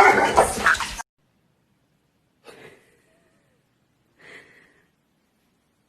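A woman's voice mixed with dog whimpers, cut off suddenly about a second in. Then near quiet with two faint short snorts, about two seconds apart, from a resting dog.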